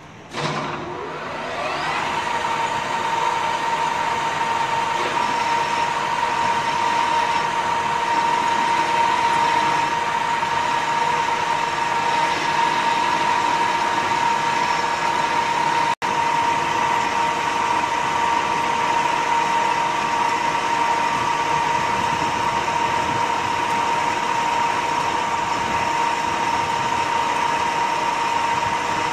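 Metalworking lathe switched on and running up to speed over about two seconds, then running steadily with a high whine.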